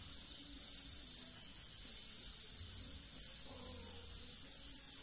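Night insects: a cricket chirping in an even, rapid series of about five chirps a second over a steady high-pitched insect trill. The chirps grow slightly fainter in the second half.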